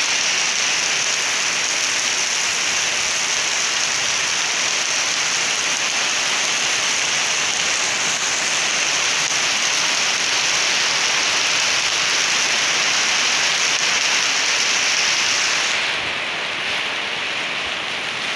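Heavy rain falling in a steady, dense hiss. About three-quarters of the way through it turns softer and duller.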